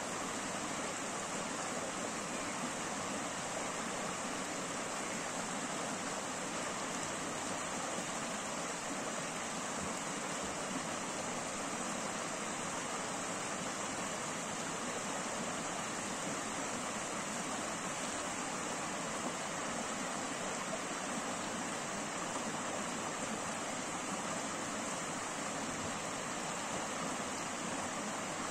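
Shallow rocky stream running over stones and small rapids: a steady, even rush of water.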